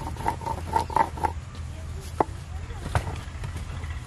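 Firewood knocking against the clay of a tandoor as it is loaded by hand, a sharp knock about two seconds in and a softer one near three seconds. During the first second an animal calls in a quick repeated series, about four calls a second.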